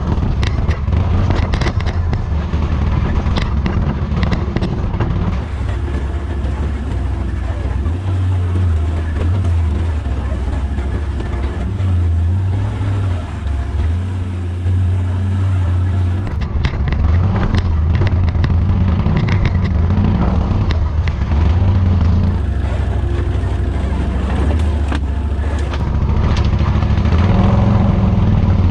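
ATV engine running at low, steady revs as the quad crawls a rough trail, its pitch shifting a little with the throttle, with scattered knocks and rattles as the wheels and rack go over roots and rocks.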